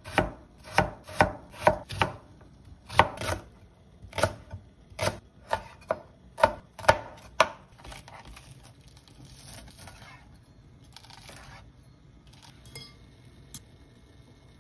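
Kitchen knife chopping through Korean radish onto a plastic cutting board: about fifteen sharp chops, roughly two a second, for the first seven seconds or so. Then a softer rasping as the knife slices through fried fish cake, and a couple of faint clicks near the end.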